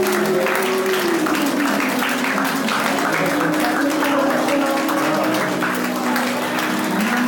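A crowd of guests clapping and cheering, with voices held out in long drawn calls over the applause.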